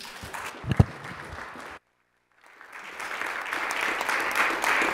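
A room of people applauding. The clapping swells after a brief gap about two seconds in. A single thump comes just under a second in.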